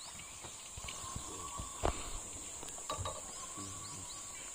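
Steady high-pitched drone of forest insects, with a single sharp click about two seconds in.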